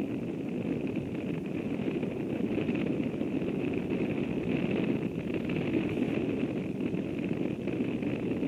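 Steady outdoor ambience: low wind rumble on the microphone, with a faint steady high-pitched hum running beneath it.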